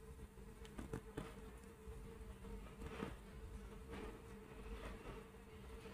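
Soft, faint clicks and rustles of a crochet hook being worked through cotton yarn to secure the yarn end, over a faint steady hum.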